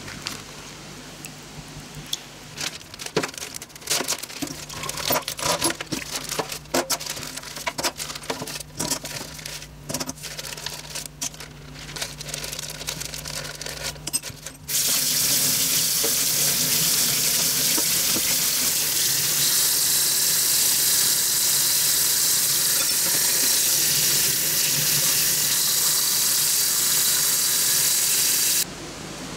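Small aluminium parts clinking and clattering as they are handled. About halfway through, a kitchen tap is turned on and runs steadily onto the parts in a stainless steel sink, stopping abruptly just before the end. This is a water-break rinse: if the water beads on a part, it is not clean enough for anodising.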